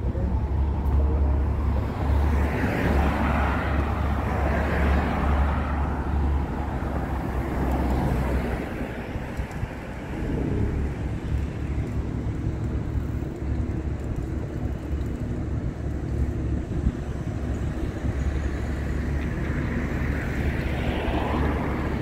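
Motor vehicle engine running steadily with a low drone, while other vehicles pass by: one swells and fades a few seconds in, and another builds near the end.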